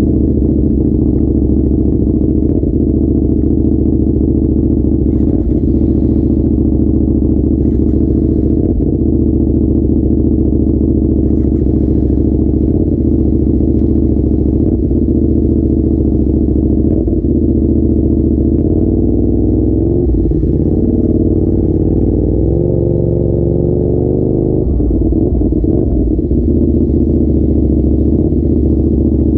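A vehicle engine running steadily, loud and low-pitched, its pitch shifting a little about twenty to twenty-five seconds in, with faint rattles now and then.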